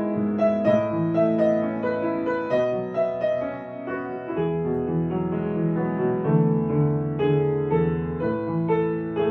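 Slow, gentle piano music: notes played one after another with held chords beneath.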